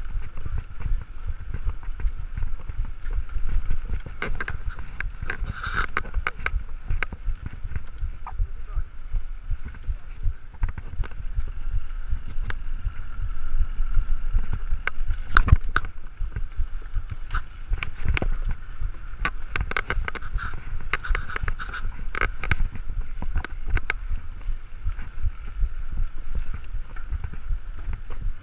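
Mountain bike ridden over paths and grass, heard from a camera mounted on the rider: a constant low rumbling buffet with frequent sharp rattles and clicks from the bike over bumps, and one hard knock about halfway through.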